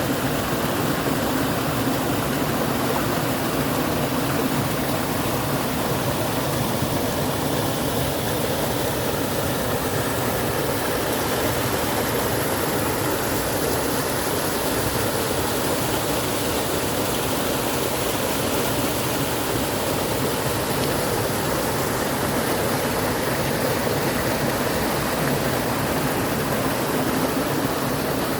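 Mountain valley stream rushing, a steady, unbroken sound of flowing water.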